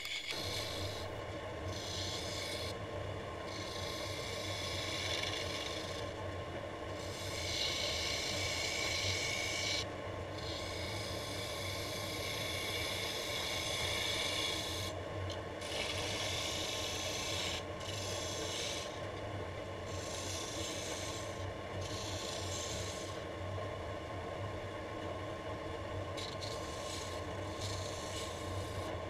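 Wood lathe running with a steady hum while a gouge cuts a spinning laminated wood blank. The hiss of the cut keeps breaking off and starting again as the tool is worked along the rest.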